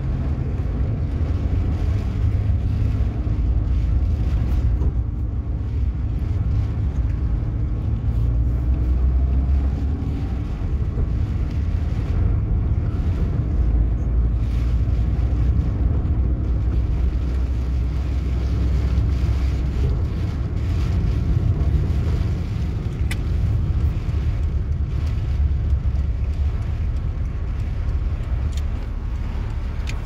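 Steady low rumble of a car driving on a wet street, heard from inside the cabin: engine and road noise.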